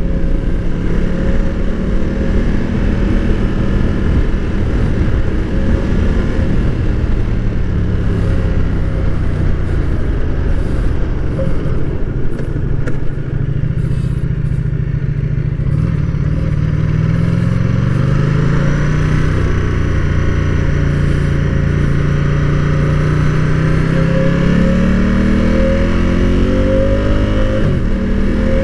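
Ducati Diavel's L-twin engine and stock exhaust under way. The engine note holds steady, drops about halfway through, then rises twice as the bike accelerates.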